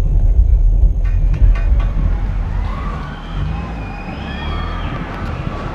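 Heavy bass from a car audio system's subwoofers, with parked cars' alarms going off from about three seconds in: several wailing siren tones rising and falling over each other, set off by the bass.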